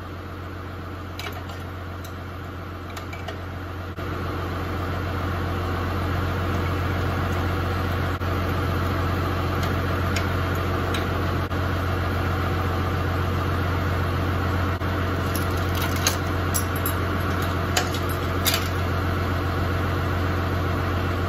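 New Holland tractor's diesel engine idling steadily, left running while the baler's PTO shaft is unhooked; it grows louder about four seconds in. A few short metal clinks come from the hitch jack and PTO shaft being worked.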